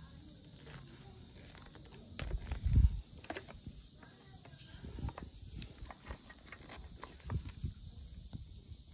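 Handling noise as a black rubber hose is pushed onto a fitting on a small engine sprayer: scattered clicks and knocks, with one louder low thump between two and three seconds in. The engine is not running.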